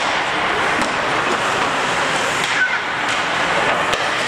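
Ice hockey play heard from the rink side: a steady scraping hiss of skate blades on the ice, with a few sharp clicks of sticks striking the puck.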